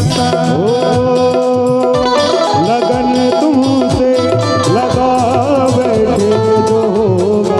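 Instrumental passage of a devotional bhajan: tabla played with repeated swooping bass strokes under a sustained electronic keyboard melody.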